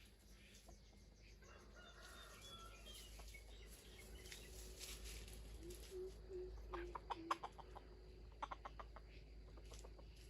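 Faint clucking of a wild junglefowl: a short run of low clucks about halfway through, then two quick, stuttering runs of clucks later on.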